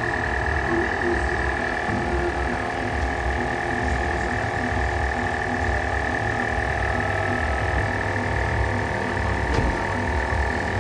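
Portable 12 V tyre-inflator compressor running steadily with a fast pulsing chug and a steady whine, pumping air into a car tyre.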